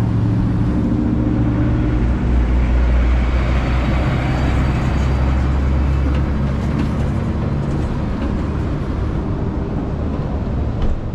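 A large vehicle engine running steadily close by, with a loud low hum, while road noise swells and fades in the middle; a short knock near the end.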